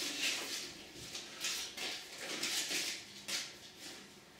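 The paper-foil wrapper of a block of butter crinkling and rustling as it is peeled off, in a series of short rustling bursts.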